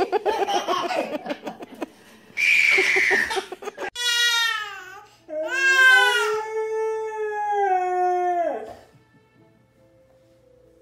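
A husky howling with a baby crying along: long wails that rise and fall together, then drop away sharply about nine seconds in, leaving only faint music. Before them, in the first three seconds, come loud short noisy bursts.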